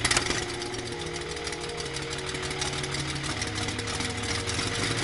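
Lycoming O-435 air-cooled flat-six aircraft engine running steadily on a test stand with its propeller turning, a fast, even train of firing pulses.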